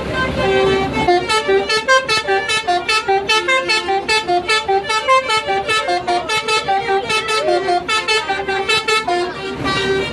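A bus's Basuri telolet horn playing a fast melody: a held horn note, then about a second in a rapid run of short horn notes hopping up and down in pitch.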